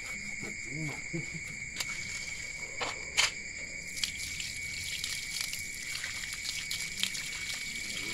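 Crickets chirping steadily, with a few sharp knocks, the loudest about three seconds in. From about four seconds in, tap water pours and splashes over a snake carcass as it is rinsed by hand.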